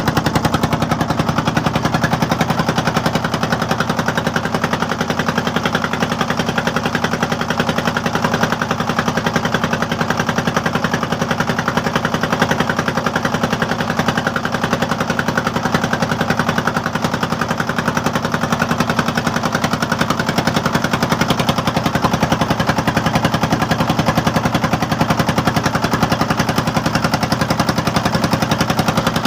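A boat's engine running steadily at an even speed, a rapid, regular chugging with a steady low hum under it.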